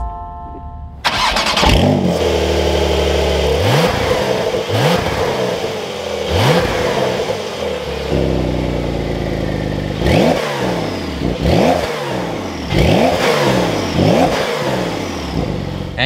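Porsche 911 Carrera S (992) twin-turbo 3.0-litre flat-six starting up about a second in: it flares and then settles to a fast idle. After that it is blipped again and again, each rev rising and dropping quickly, with the blips coming closer together in the second half.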